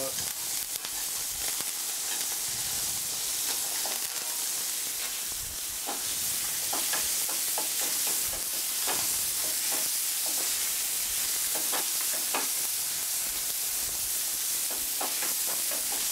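A piece of turbot frying in hot fat in a pan with lemon slices: a steady sizzle with scattered small spits and crackles.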